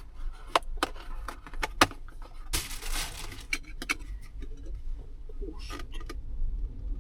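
Sharp clicks and taps of small metal parts of a hardtop catch lock being handled and worked, with a short scraping rustle about two and a half seconds in.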